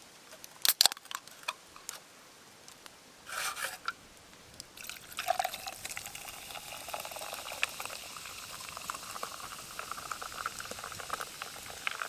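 A few sharp knocks, then from about five seconds in a steady stream of liquid pouring into a container, with a held ringing tone and small ticks through it.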